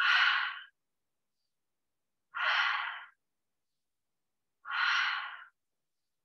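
A woman breathing audibly three times, about two and a half seconds apart, each breath a short breathy hiss lasting under a second. These are paced breaths taken while holding a yoga boat pose.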